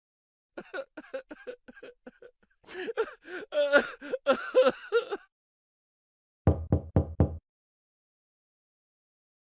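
A run of stock comedy sound effects: a quick series of short pitched blips, then a louder stretch of pitched sounds that waver in pitch, then four fast knocks about two-thirds of the way through.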